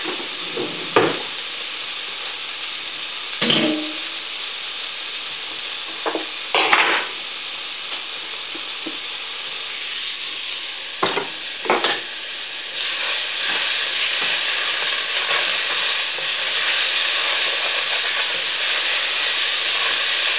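Onion mixture frying and sizzling in a pot while it is stirred, with several sharp knocks and clanks of the utensil and pot in the first half. The sizzle grows louder about two-thirds of the way through.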